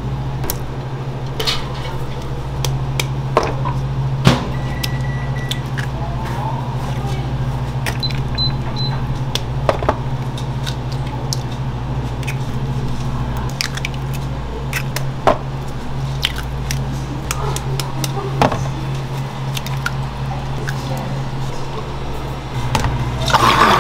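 Bakery kitchen work: a steady low machine hum with scattered clicks and knocks of utensils and trays, and three short high beeps about eight seconds in. Near the end, a louder machine starts running.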